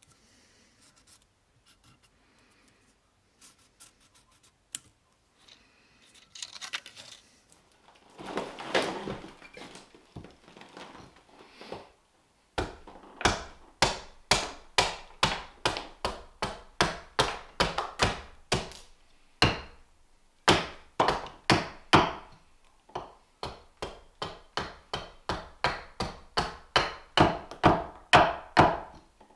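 Carving hatchet chopping into a green-wood spoon blank held on a chopping stump, in a steady run of sharp wooden chops about two a second, with a brief pause about two-thirds of the way in. Before the chopping there is faint marker scratching, then a short stretch of rasping noise.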